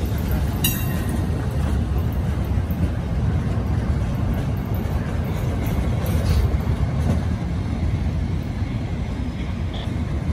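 Amtrak Amfleet passenger cars rolling past on the rails: a steady rumble of wheels on track, with one sharp click about a second in.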